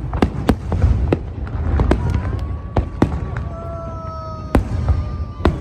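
Fireworks going off in quick succession: sharp bangs and cracks several times a second over a constant deep rumble.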